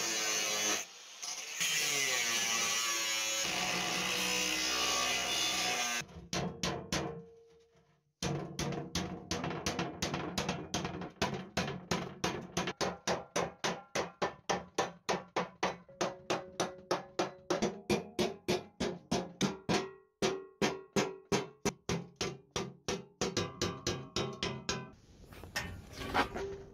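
Angle grinder cutting through sheet metal, with a short break about a second in. About six seconds in it stops, and after a brief pause a hammer strikes the sheet metal about three times a second, bending its edge over the bench edge.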